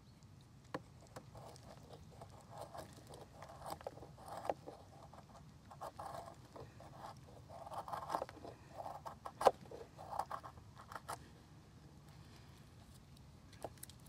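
Knife cutting and splitting thin sticks of dry firewood: a series of short scraping, crackling strokes, with one sharp crack a little past the middle.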